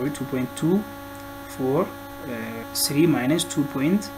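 Steady electrical mains hum, a drone of many even tones, under short bursts of a voice speaking.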